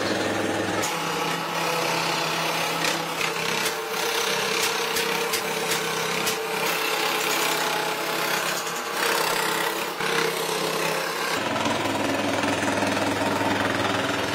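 The electric motor of a workshop power tool runs steadily. Its hum shifts pitch about a second in and again near the end, and a run of sharp clicks sounds in the middle.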